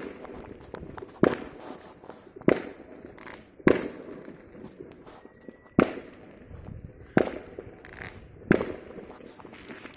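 Fireworks going off: six sharp bangs, one every second or so with a longer gap in the middle, each followed by a short echo.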